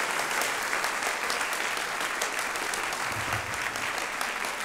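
A large audience clapping, the applause gradually fading.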